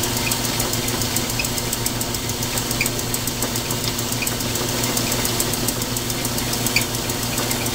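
Logan 922 metal lathe running at a steady speed, its motor and drive humming with a fast, even ticking, while a center drill is fed into the end of a steel bolt turning in the chuck, with a few faint chirps from the cut.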